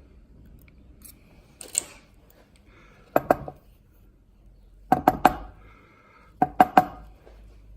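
Small metal lock pins and springs clicking and clinking against a hard surface, in four quick clusters of one to four sharp clicks, as the lock's parts are handled and set down.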